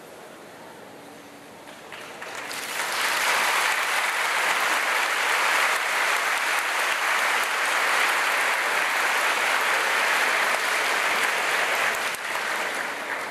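Large audience applauding. The clapping starts about two seconds in, swells quickly to a steady full level, and fades near the end.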